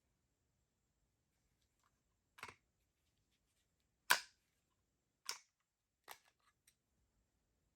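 Short, sharp plastic clicks and snaps from handling the toy SparkLence, five in all about a second apart, the one about four seconds in the loudest.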